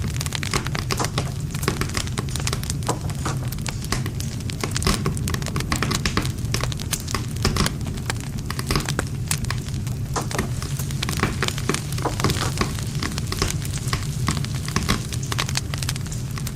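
Wood fire crackling and popping: dense irregular snaps of burning wood over a steady low rumble of the flames.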